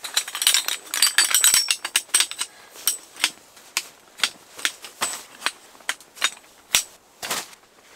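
Small folding camping chair being opened and set up: a flurry of clicks and rattles from its frame, then single clicks about two a second, with one louder click near the end.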